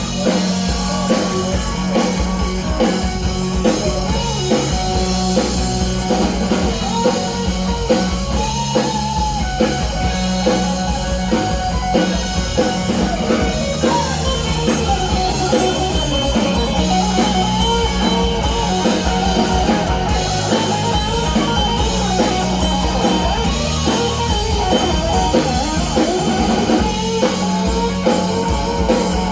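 Live rock band playing an instrumental break: a lead electric guitar line over a steady drum kit beat and bass.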